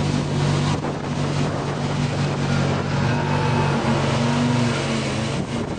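Riding lawn tractor's engine running steadily while its mower deck cuts through tall, dry grass, with a rushing hiss of cut grass over the engine note.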